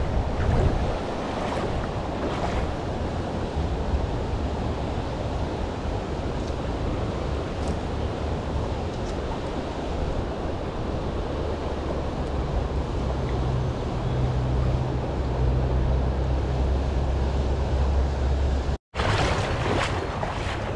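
River current running fast over a shallow stony bed, with wind buffeting the microphone in a low rumble that grows heavier past the middle. The sound drops out for a split second near the end.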